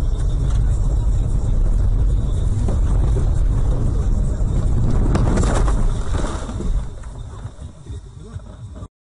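Car cabin rumble as the car slides off a snowy road into the snowbank. About five seconds in there is a loud rush and crackle of the car ploughing through deep snow, and then the rumble dies down.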